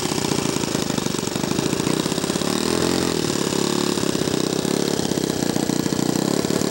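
Engine of a large radio-controlled scale model airplane running steadily, with a fast, even firing beat.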